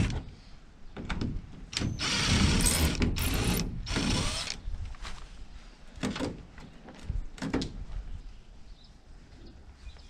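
Cordless drill running in a few short bursts to back screws out of a camper window frame, stopping after about four and a half seconds. Scattered clicks and knocks follow as the frame is handled.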